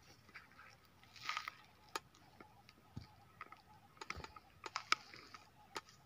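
Footsteps and small movements on dry grass and stony ground: faint scattered crunches with a few sharp clicks, the sharpest about five seconds in.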